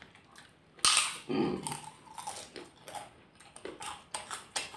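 Close-up eating sounds: a crisp kerupuk cracker bitten into with a sharp crunch about a second in, followed by crunchy chewing and wet mouth sounds of rice eaten by hand, with a brief hum of appreciation.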